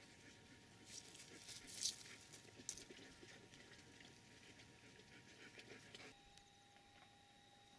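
Near silence: faint outdoor ambience with a few soft clicks or rustles, two of them a little clearer about two and three seconds in.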